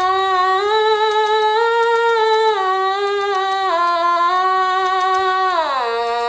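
Otamatone Deluxe electronic synthesizer, set to its middle octave at half volume, playing a tune of held notes that step up and down in pitch. About five and a half seconds in it slides down steeply to a lower note.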